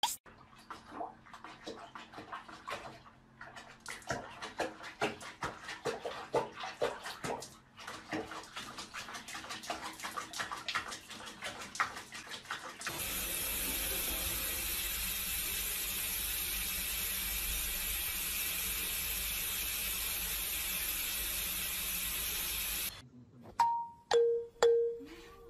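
Water sounds of a cat being bathed in a sink: irregular small splashes and drips for about the first half, then water running in a steady spray for about ten seconds that cuts off abruptly. A few plucked music notes come in near the end.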